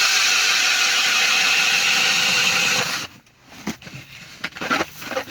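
Kobalt XTR 24-volt brushless hammer drill spinning a 6-inch ice auger through lake ice: a steady high whine that stops suddenly about three seconds in, followed by a few light knocks.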